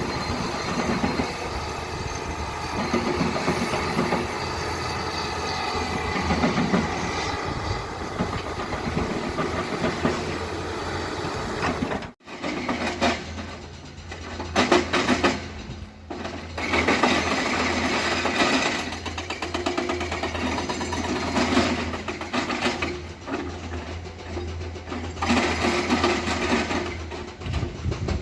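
Heavy earthmoving machinery at work: diesel engines running under a continuous mechanical rattling and clanking. About twelve seconds in the sound cuts out for an instant, then resumes as a steadier low engine drone with intermittent spells of louder clatter.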